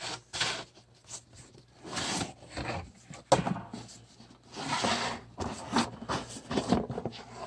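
Rustling, scraping and knocking of a package being opened and its packing material handled, in irregular bursts with a few sharp clicks.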